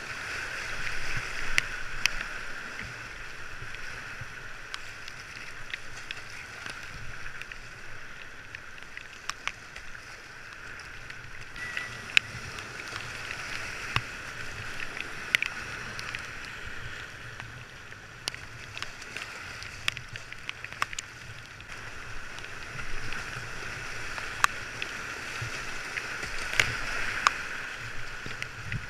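Whitewater river rapids rushing steadily past a kayak, the river running at about 1700 cubic feet per second, with paddle strokes and water splashing against the boat. Short sharp knocks and splashes come every second or two.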